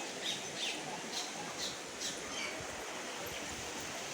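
A bird calling repeatedly, short high falling notes about two a second, stopping a little after two seconds in, over a steady outdoor background hiss.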